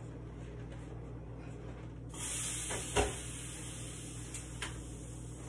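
Kitchen sounds away from the camera over a steady low hum. A steady hiss starts about two seconds in, and a sharp knock about a second later is the loudest sound, followed by a lighter click.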